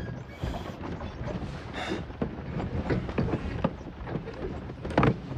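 Horse-drawn wooden cart moving along: irregular wooden creaks and knocks over a low rumble, with hooves clopping.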